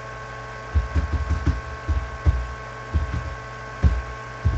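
Irregular low, dull thumps, about one or two a second, over a steady high-pitched electrical whine.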